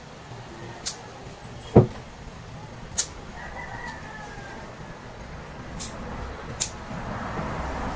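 A rooster crows once, a faint, drawn-out call a little past the middle, amid several sharp clicks and one louder knock just before two seconds in.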